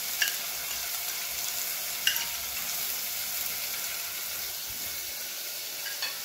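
Sliced onion and chili pepper sizzling in olive oil in an aluminium pot on a gas burner, a steady hiss. Two light clicks sound near the start and about two seconds in.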